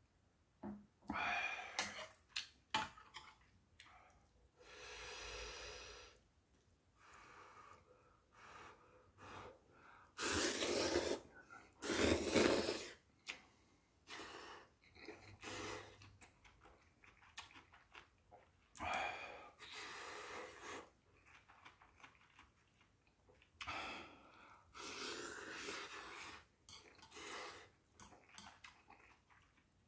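Mouth sounds of eating hot ramyeon: noodles slurped in irregular bursts, with chewing and breaths between. The loudest pair of slurps comes about ten to thirteen seconds in.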